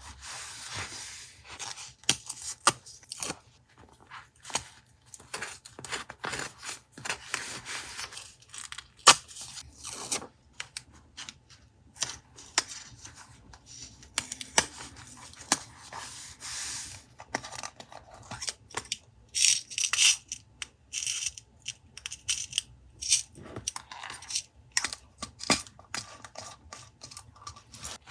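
Paper stationery being handled and torn, a run of rustles and tears broken by many short clicks and light taps.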